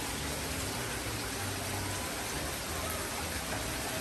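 Steady rush and splash of water falling from a small waterfall into a pond.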